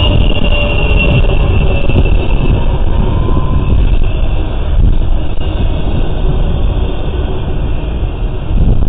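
Norfolk Southern freight train rolling past close by: a loud, steady rumble of railcar wheels on the rails.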